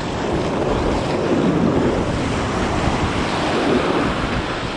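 Surf washing up the beach in a steady rush of foam and water, with wind buffeting the microphone.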